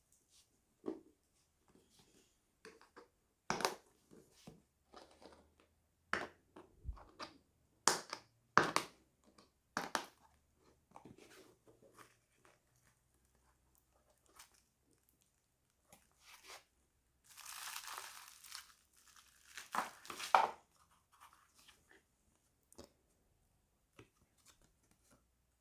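Watch packaging being handled and opened: irregular crinkles, taps and scrapes, with a longer rustle of crumpling wrapping about two-thirds of the way in and a sharp click soon after.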